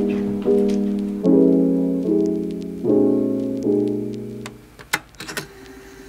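Background music: soft piano chords struck one after another, each ringing and fading, with the music dying away about four and a half seconds in. A few faint clicks follow.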